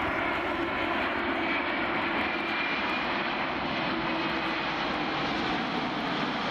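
Boeing 787-8 Dreamliner's twin turbofan engines at approach power as the airliner passes low on final approach with gear down: a steady, even jet noise with a faint high whine.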